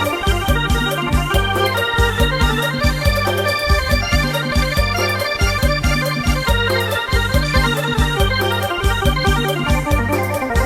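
Background music with a steady beat and a bass line that moves in held notes.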